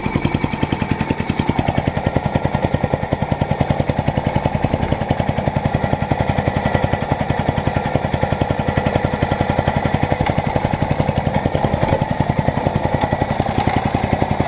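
Lawnmower's small petrol engine running steadily at raised revs, with a fast, even pulsing beat.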